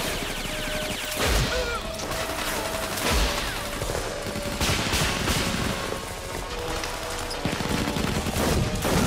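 Film shoot-out sound: rapid, sustained gunfire, many shots close together, with heavier hits about a second and a half in and about three seconds in, over a music score.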